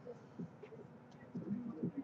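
Faint handling of trading cards: light taps and slides as cards are laid down on a table mat. In the second half a man murmurs quietly.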